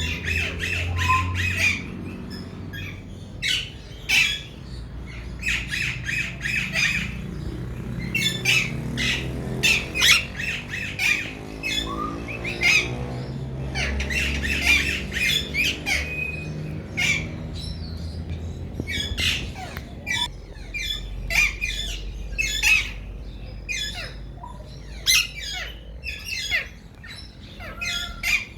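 Alexandrine parakeets giving loud, harsh squawking calls, short calls repeated in clusters throughout, over a steady low rumble.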